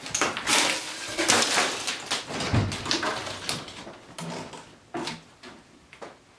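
Footsteps and a door being opened: a run of scuffs and knocks, with one heavier thump about two and a half seconds in, thinning out toward the end.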